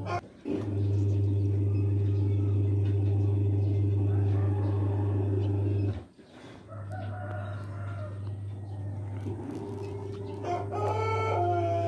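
Pelung rooster crowing with long, drawn-out steady-pitched crows, the breed's distinctive extended crow. The sound breaks off briefly about six seconds in, then a new crow begins. A steady low hum runs underneath.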